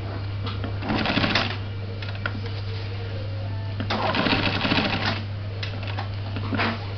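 Industrial sewing machine stitching appliqué onto flag fabric in short runs of rapid needle strokes: one of about half a second a second in, a longer one of about a second at four seconds in, and a brief spurt near the end. A steady low hum lies underneath.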